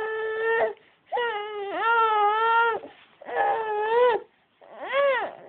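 Baby crying in a string of long, drawn-out wails, each held at a fairly steady pitch with short breaths between, the last one swooping up and back down. It is an annoyed, fussing cry from a baby bothered by a sniffly nose.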